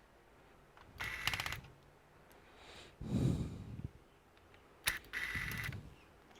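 Laptop parts being handled during disassembly: a burst of rapid clicking and scraping about a second in, a dull knock about three seconds in, then a sharp click followed by more scraping near the end.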